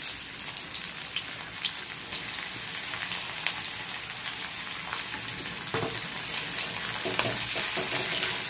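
Sliced onion sizzling and crackling in hot ghee and oil in a kadhai. The sizzle starts suddenly as the onion hits the hot fat. In the last few seconds a spatula stirs and knocks in the pan.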